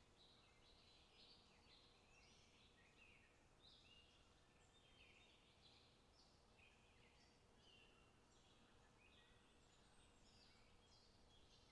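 Faint chorus of several small birds calling and singing in short, overlapping phrases without a break, over a low steady background noise.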